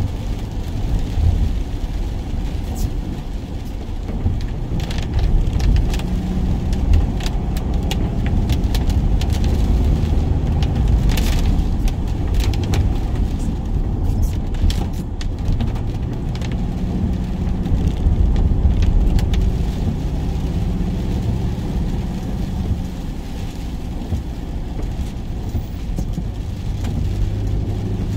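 A van heard from inside the cab: a steady low engine and road rumble, with scattered sharp ticks in the first half.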